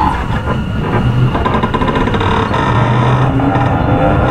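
Running sound inside a Tokyu 9020 series electric train: the Mitsubishi full-SiC MOSFET VVVF inverter and traction motors give steady tones over the rumble of wheels on rail.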